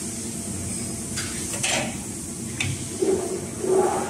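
A few light knocks and clicks as clear TPU sheet is handled and laid on the table of a high-frequency welding machine, over a steady low background hum.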